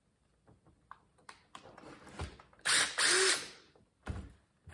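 Cordless driver with a Torx bit backing a screw out of a small chainsaw's housing: a few light clicks as the bit seats, then about a second of the motor running at speed. A thump follows near the end.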